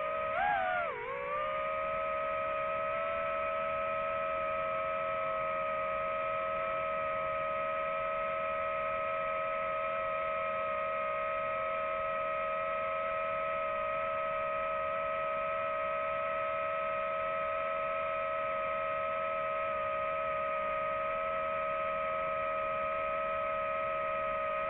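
DJI FPV drone's motors and propellers whining in flight, a single steady pitched tone. It dips and comes back up in pitch about a second in as the throttle changes, then holds steady at cruise.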